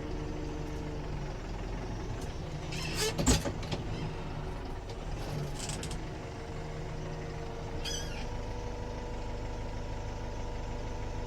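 Kubota M8540 tractor's diesel engine running steadily. A sharp knock comes about three seconds in, with lighter clicks later, and the engine note thickens slightly about eight seconds in.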